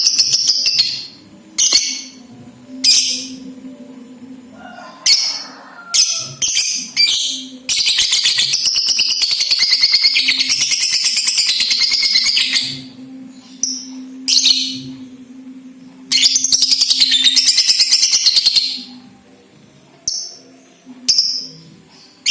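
Lovebird chattering in rapid high-pitched trills. Short bursts come first, then two long unbroken runs of chatter of about four and about three seconds: the long 'ngekek' song.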